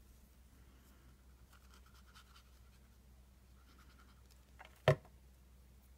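Faint scratching and rubbing of paper being handled and pressed down on a craft desk, with one sharp tap about five seconds in.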